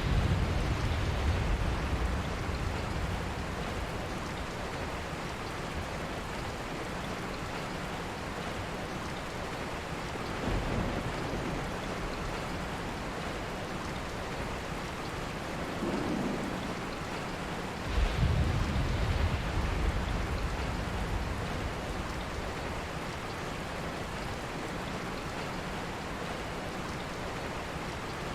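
Steady rain falling in an even hiss, with low rumbles of thunder rising and fading a few times: the strongest at the start and about eighteen seconds in.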